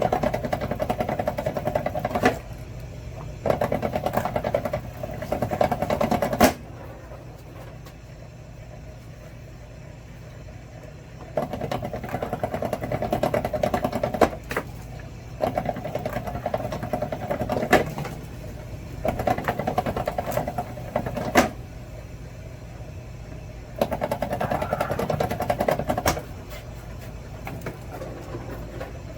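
Wire stripping machine working in bursts of two to three seconds, about six times, as lengths of wire are run through it. Several bursts end in a sharp click, and a steady low hum carries on between them.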